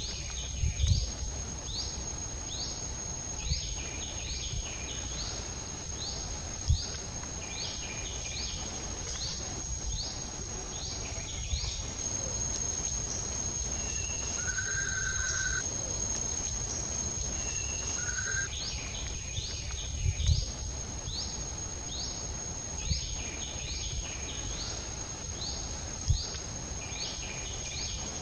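Outdoor insect and bird ambience: a steady high insect whine, with a bird repeating short falling chirps in long runs. Midway the chirps pause and a few longer whistled bird notes sound. A handful of brief low thumps stand out.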